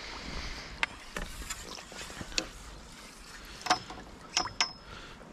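Water splashing and sloshing as a hooked carp is drawn into a landing net and the net is lifted, with a few sharp clicks and knocks.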